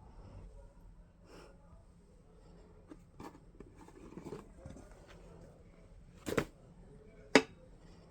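Perkins Brailler's metal mechanism: faint clicks and handling noises, then two sharp clunks about a second apart near the end, the second louder.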